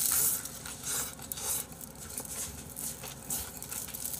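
A person eating chicken feet and bean sprouts by hand, with irregular chewing and smacking noises.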